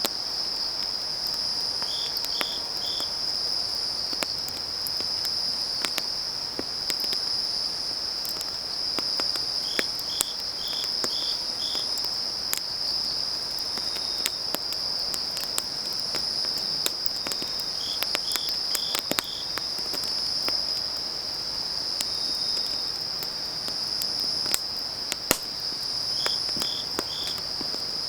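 Autumn-night grass insects: one trills continuously at a high pitch while another chirps in short runs of three to five every several seconds. Scattered pops and crackles of burning firewood come through.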